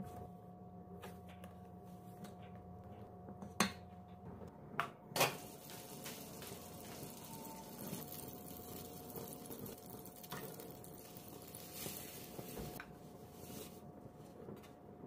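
A few sharp knocks of a utensil against a pan or bowl, then a steady sizzling hiss from butter melting in a hot nonstick frying pan, easing off near the end.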